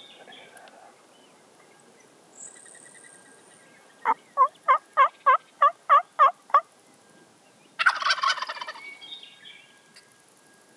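A turkey call runs a string of nine yelps, about three a second, to strike a gobbler. About a second later a wild turkey gobbler answers with a loud, rattling gobble that fades over a second and a half.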